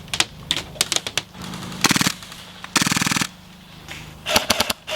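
Airsoft rifles firing: clusters of sharp clacking shots, with a rapid full-auto burst of about half a second around three seconds in.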